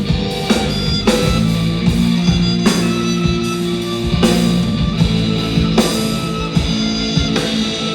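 A live band playing an instrumental passage of the song, with electric guitar, bass and drum kit, with a cymbal accent about every second and a half.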